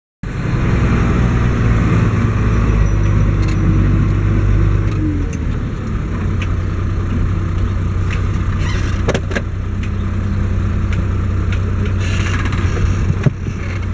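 Case IH 1056 XL tractor's six-cylinder diesel engine running steadily, heard from inside the cab, its note dropping slightly about five seconds in, with a few sharp clicks or rattles later on.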